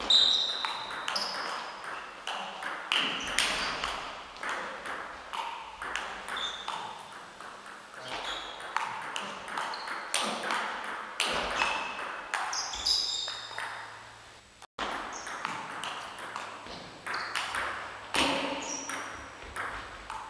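Table tennis ball being hit back and forth in rallies: a long run of sharp clicks off the bats and table, each with a short high ping.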